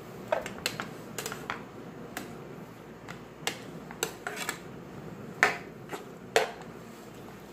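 A spatula knocking and scraping against a nonstick frying pan as diced potatoes are stirred in oil: irregular clicks and knocks, the two loudest about five and a half and six and a half seconds in.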